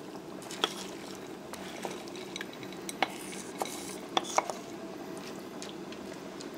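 A wooden spoon scrapes rice out of a bowl into a pot and knocks against the bowl's rim, giving a few sharp clicks and taps over a faint steady background hum.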